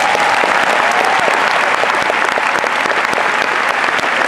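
Large crowd applauding, dense and steady clapping, with a few whoops in the first second.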